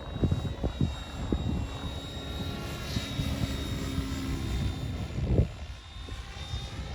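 Oxy 5 HF electric RC helicopter in flight: a steady high motor and rotor whine whose pitch bends up and down as it moves about, over irregular low thumps.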